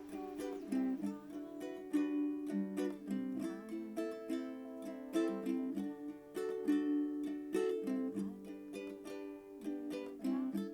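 Background music of gently plucked strings, ukulele or guitar, playing a melody over chords.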